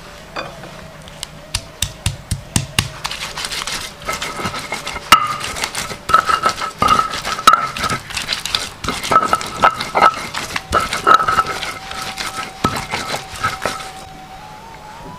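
Round stone pestle grinding and knocking on a flat stone mortar (batu lado), crushing dried anchovies into wet chili paste: quick irregular scraping and clicking strokes that stop about a second before the end.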